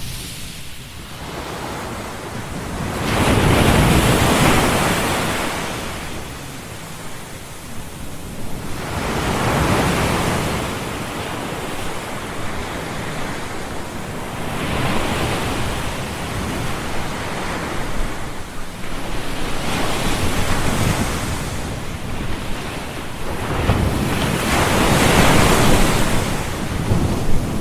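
Ocean surf ambience: a steady rushing of waves that swells and falls back about every five or six seconds, each swell breaking and washing out.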